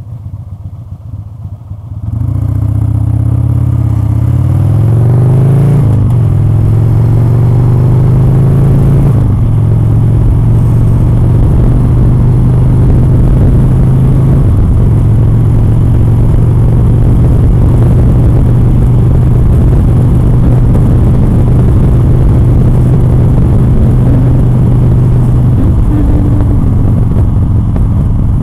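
Motorcycle engine accelerating. It gets louder about two seconds in, its pitch climbs with a break about six seconds in, then it holds a steady note at cruising speed.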